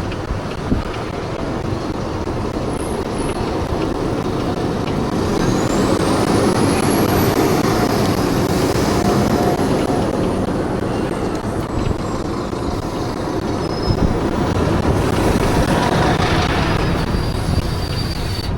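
Riding a bike through traffic: steady road and wind noise, with a faint high whine that climbs over a few seconds and then slowly falls away.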